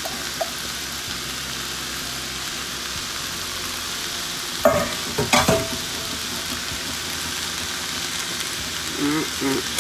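Shredded cabbage, onion and carrots sizzling steadily in a hot pan. About five seconds in there are a few knocks and scrapes of a utensil stirring the vegetables, and a few smaller ones near the end.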